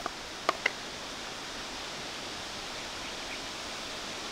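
Three light clicks in the first second as the snap lid of a small plastic spice container is opened, followed by a steady, even outdoor hiss.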